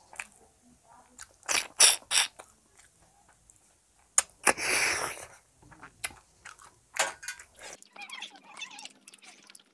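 Close-miked mouth sounds of someone eating rice by hand. There are three short, loud, noisy bursts about one and a half to two seconds in, then a sharp click and a rushing noise lasting about a second around the middle, then quieter wet chewing and lip smacks near the end.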